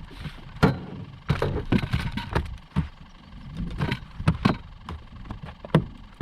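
Largemouth bass flopping around on a boat deck: a run of irregular thumps and slaps against the hull.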